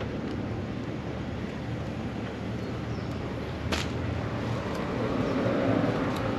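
Steady low outdoor background rumble that swells a little in the second half, with one sharp click a little past halfway.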